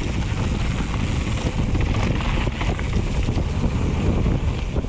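Mountain bike descending dirt singletrack at speed: a steady rumble of tyres on the trail with small rattles and knocks from the bike, under heavy wind buffeting on the microphone.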